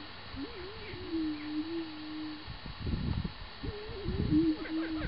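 Greater prairie-chickens booming: two low, hollow, moaning calls of about two seconds each, each rising briefly and then settling to a held tone. Short, rough, low sounds come in between them in the second half.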